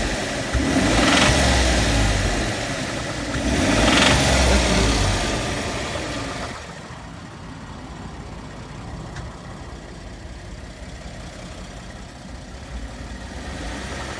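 2014 Ford F-150's 3.5-litre twin-turbo EcoBoost V6 revved twice, then dropping back to a steady idle about six and a half seconds in.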